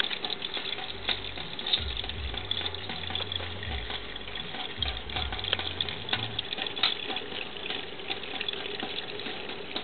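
Water running from a chrome mixer tap in a thin stream, with a cat lapping from it: a steady splashing hiss sprinkled with quick little clicks.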